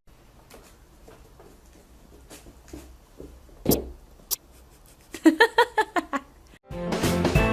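An animal giving a quick run of about eight short, high-pitched calls, after a couple of sharp clicks.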